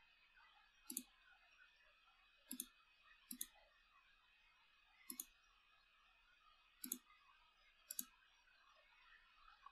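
Computer mouse button clicking about six times, a second or two apart, placing points of a spline in CAD software. Each click is a quick double tick.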